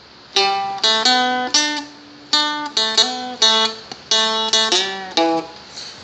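Seagull Merlin, a small four-string fretted dulcimer, picking a single-note riff: a run of plucked notes at a walking pace, each ringing briefly, with a short pause about two seconds in.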